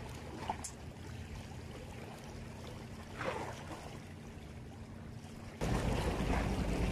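Outdoor ambience over open sea water: a steady low hum with a faint wash of water and wind. About two thirds of the way in, wind on the microphone suddenly gets much louder and rushes on.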